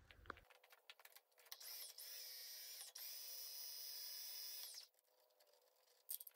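A small electric power tool's motor whirring faintly in two runs of about one and a half and two seconds, with light metallic clicks before and after.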